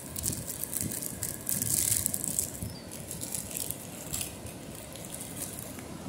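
Ocean surf washing in, a low rumble under a crackling, fizzing hiss of foam that swells around two seconds in.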